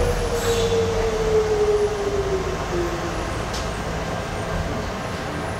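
Docklands Light Railway train slowing to a stop: the electric drive's whine falls steadily in pitch for about three seconds over a low running rumble, then stops and leaves the rumble, with a faint click just after.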